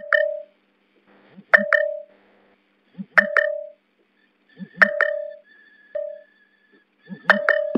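Samsung Galaxy A52 sounding its moisture-detected alert: a short double electronic beep that repeats about every second and a half. It is the warning that water has got into the USB charging port and the charger must be unplugged.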